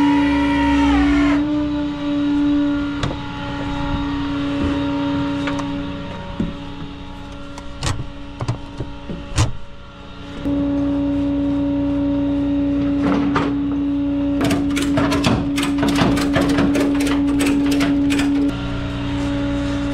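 Flatbed tow truck running with a steady hum, with a couple of sharp knocks about eight and nine seconds in. From about thirteen to eighteen seconds a run of quick clicks follows as a ratchet tie-down strap is cranked tight over a wheel on the deck.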